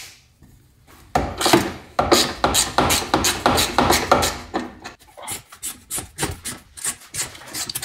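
Hand tool with a 7 mm socket turning screws out of a car's plastic front splash pan: a run of short repeated strokes, about three a second, that pause briefly near the middle and then come quicker, about five a second.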